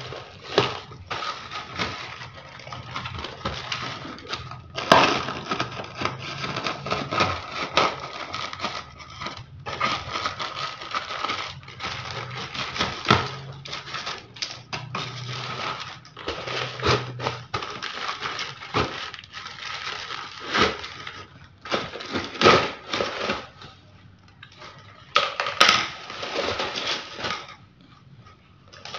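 Plastic mailer bag crinkling and crackling as it is handled and opened, in irregular bursts with sharper crackles now and then.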